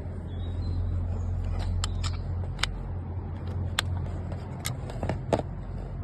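A car door lock and latch being worked after repair, giving a series of about seven sharp clicks and clacks over a few seconds, the loudest near the end. A steady low hum runs underneath.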